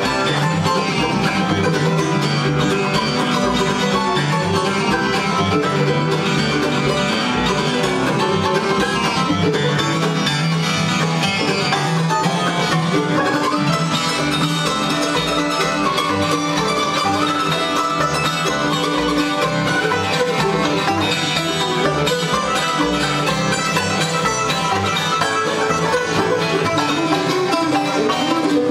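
Bluegrass band playing an instrumental tune at a steady, driving tempo, with acoustic guitar, five-string banjo and mandolin.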